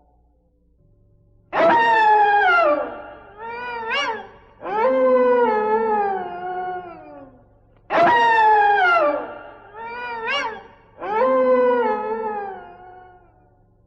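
An animal howling in long falling calls, each followed by a short rising call and another long falling call; the same sequence is heard twice.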